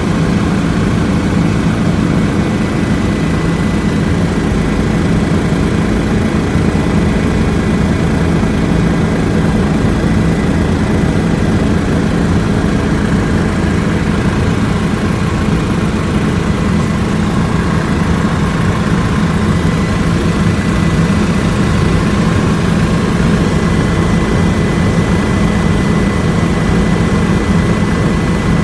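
Steady aircraft engine and airframe noise heard from inside the cabin: a loud, even low drone with a thin steady whine above it.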